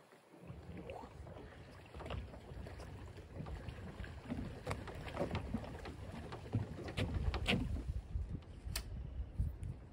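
Wind rumbling on the microphone, with scattered footsteps and knocks on a floating dock as a kayak is carried along it.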